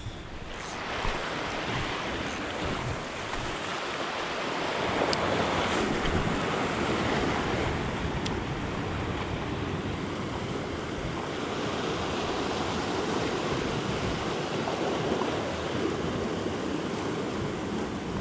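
Sea waves surging and washing over shoreline rocks, a steady rushing wash that swells and eases, with wind buffeting the microphone.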